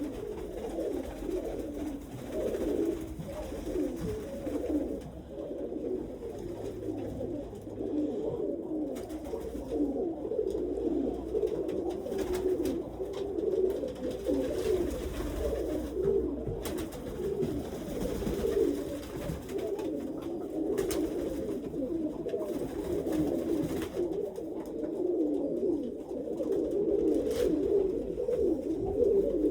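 A flock of domestic pigeons cooing, many calls overlapping into a continuous low burble.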